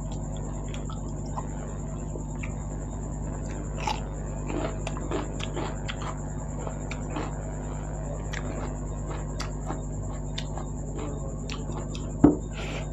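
Close-miked eating: chewing and soft wet mouth and food sounds with scattered small clicks, over a steady electrical hum. A single sharp knock about twelve seconds in.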